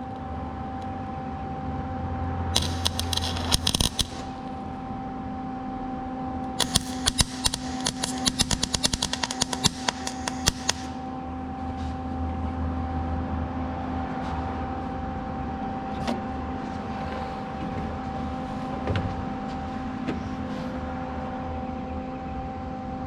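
Welding arc crackling in two short runs, the second about four seconds long, over a steady electrical hum.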